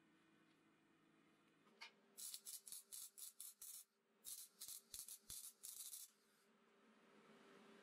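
Welding arc crackling in about fifteen short bursts, three or four a second, with a brief pause about four seconds in, as a steel tube is stitch-welded. A faint steady hum runs underneath.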